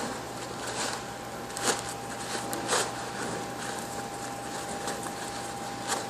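Filter cloth rustling and brushing against a filter-press chamber plate as it is pushed through the plate's centre hole, in about four short swishes. A steady faint hum runs underneath.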